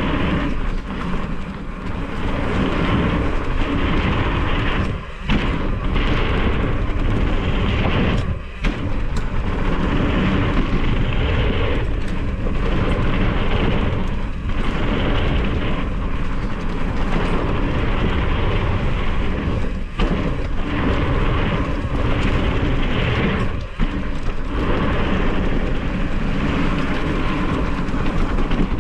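Ride noise from a mountain bike on a dirt trail: loud, constant rumble of wind on the camera microphone and tyres on dirt, dipping briefly a few times.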